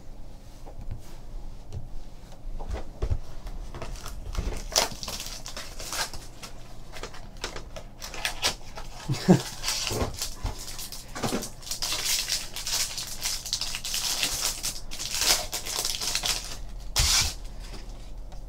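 A foil trading-card pack wrapper being torn open and peeled away, crinkling and crackling in repeated bursts, with small clicks and taps of the cards being handled.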